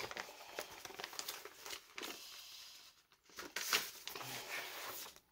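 Crinkling and rustling of a cross-stitch kit's plastic packaging and its printed paper sheet as they are opened and handled, in irregular handfuls with a short pause about three seconds in.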